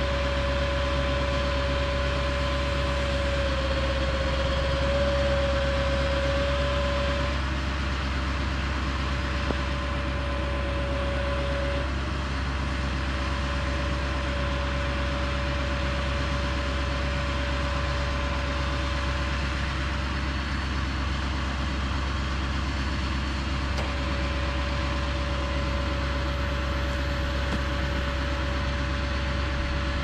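Woodland Mills HM130 portable bandsaw mill running steadily: its gas engine gives a low drone, with a steady high whine on top that wavers briefly a few seconds in.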